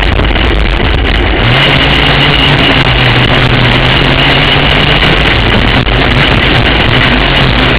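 Dirt-track racing kart's engine running hard, heard loud and close from an onboard camera. Its note settles to a steady pitch about a second and a half in.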